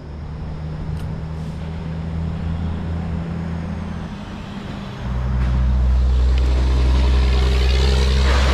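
Road vehicle engine running with a steady low drone. About five seconds in it gets louder and deeper, as a heavier engine comes in.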